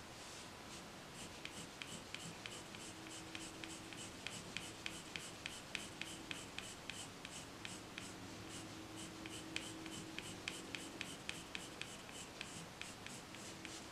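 Prismacolor colored pencil scratching on paper in quick, short, even strokes, about four a second, as hair is shaded in.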